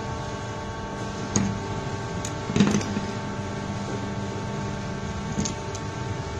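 Vertical silicone rubber injection moulding machine running with a steady hum, broken by three short mechanical knocks, the loudest about two and a half seconds in.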